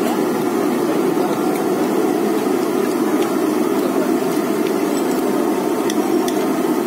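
A steady, engine-like hum fills the background, with faint clinks of forks and spoons on plates.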